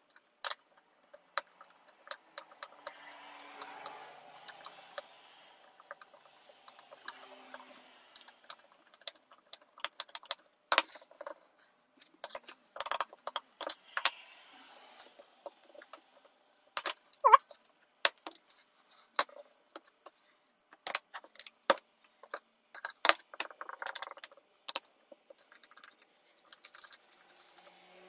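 Screwdriver and small metal parts of an opened Seagate SATA hard disk drive clicking and clinking as the read/write head actuator is unscrewed and worked loose: many sharp metallic ticks at uneven intervals, with short stretches of scraping between them.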